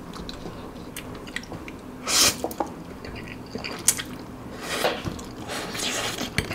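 A person slurping up mouthfuls of spicy instant noodles and chewing them wetly, with a few short slurps and a small click.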